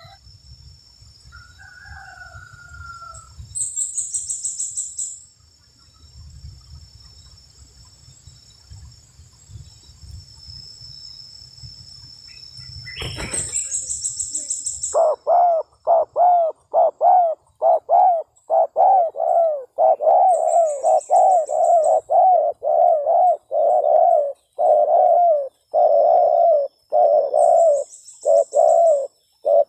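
Spotted dove (tekukur) cooing over and over: from about halfway in, a fast, steady run of low coos, two or three a second, loud and close. Before that, short high chirping trills come a few times over a low rumble, with a sharp click just before the cooing starts.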